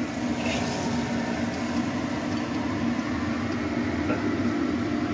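A steady low machine hum, with a few faint scrapes and taps of a spatula on a wok as stir-fried vegetables are tipped onto a plate.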